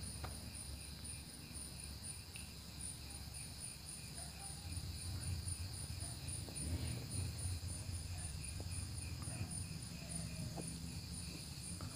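Crickets chirping: a faint, steady, even rhythm of high pulses, over a low rumble.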